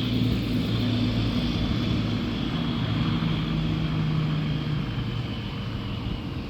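Engine noise from a motor vehicle: a steady low drone with a faint high whine falling slowly in pitch, easing off slightly near the end.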